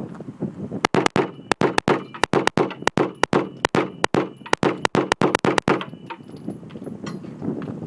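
Rapid semi-automatic fire from a 9mm BUL Cherokee pistol in a Carmel PDW carbine conversion kit: a long string of about two dozen shots, several a second and unevenly spaced, stopping a little before the end.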